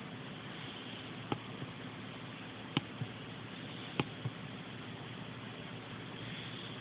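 Steady hiss with six light, sharp clicks in three close pairs, the first about a second and a half in, then near three and near four seconds in: taps on the touchscreen of a VIA 8650 Android tablet.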